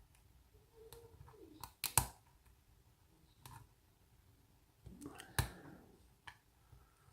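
Lock pick and tension wrench working the pins of a kik cylinder lock: a few sharp separate metallic clicks, the loudest just before two seconds in and another a little after five seconds, with fainter ticks between.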